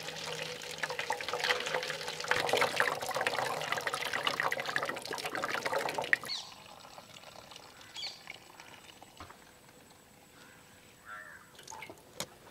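Blended mint juice poured through a strainer, the liquid running and splashing for about six seconds and then stopping suddenly, followed by a few faint drips and small clicks.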